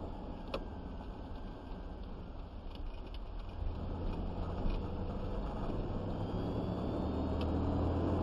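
Vehicle engine running with a steady low drone that grows louder from about halfway through, with a few light clicks.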